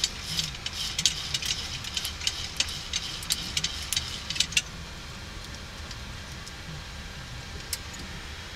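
Toggle switches on a Boeing 737 MAX overhead panel being flicked, a quick run of sharp clicks in the first four or five seconds, with one more near the end. Under them the steady hum of the cockpit's fans and air conditioning.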